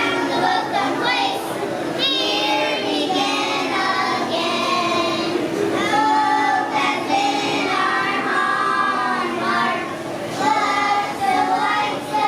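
A group of young children singing a song together, sustained sung notes with no break.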